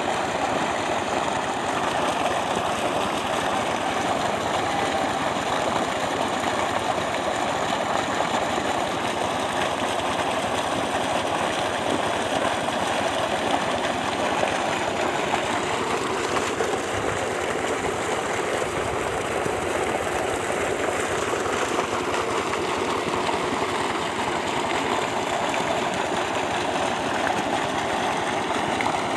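Water gushing steadily from a solar-powered tube well's discharge pipe and splashing into a pool below.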